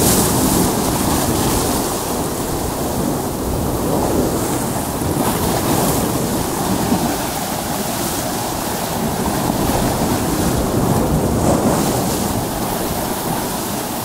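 Sea surf breaking and washing against a rocky shore: a steady rush of water with a few louder surges as waves come in.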